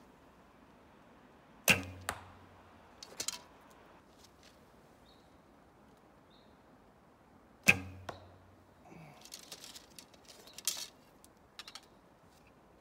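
Two shots from a Kaiser traditional bow, about six seconds apart: each release is a sharp snap of the bowstring followed by a short, low thrum of string and limbs. Lighter clicks and rattles come between the shots.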